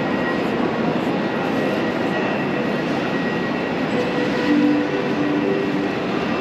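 Train running at a station platform: a steady, loud rumble with faint humming tones over it.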